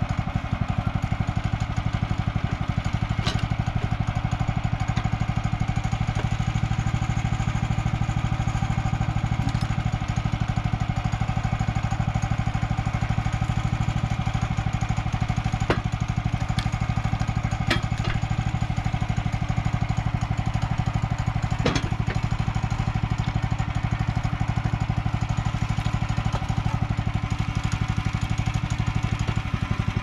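Hud-Son Oscar 428 sawmill's small engine idling steadily, with a few sharp knocks as a cant hook turns a log on the mill's steel track.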